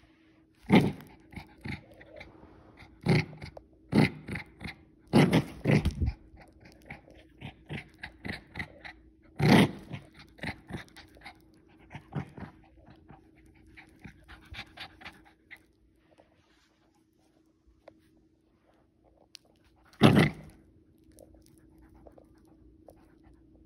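Small dog playing with plush toys, huffing and panting in short sharp bursts, with softer snuffling and mouthing sounds in between. There is a long quiet stretch, then one more loud burst near the end.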